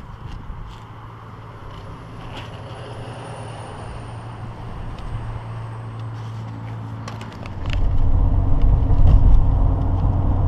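A truck driving, heard from inside the cab: a steady low engine and road rumble that slowly builds, then gets much louder suddenly about three-quarters of the way through, with a few sharp clicks around the jump.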